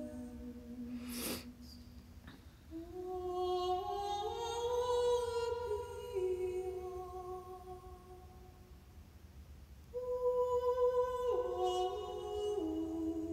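A woman's voice humming a slow, wordless melody in long held notes that step up and down, fading for a few seconds before swelling again near the end. A short breathy noise comes about a second in.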